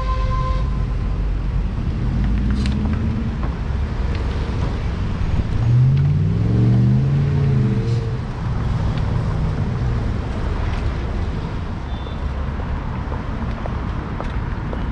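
City street traffic heard from a moving bicycle: steady road rumble, with a motor vehicle passing close about halfway through, its engine pitch rising and then falling as it goes by. A short beep sounds at the very start.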